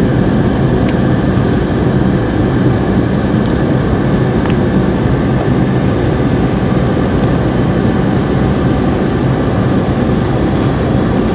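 Airliner cabin noise in flight: the steady low rumble of the engines and rushing air, heard from inside the cabin at a window seat.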